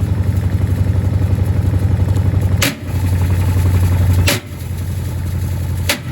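Gorenje washing machine running loaded with bricks: a steady low motor hum with a regular pulsing, interrupted three times by a short click and a brief dropout.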